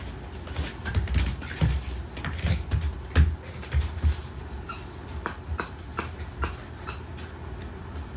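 Mame-shiba puppies playing, their paws and toys making irregular taps, clicks and dull thumps on the floor, busier in the first half.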